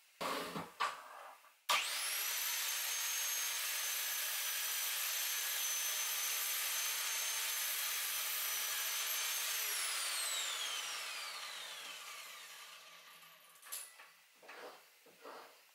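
Electric mitre saw switched on, its motor spinning up at once to a steady high whine and running for about eight seconds while a board is cut, then switched off, the whine falling in pitch as the blade winds down. A few light knocks of wood being handled come before and after.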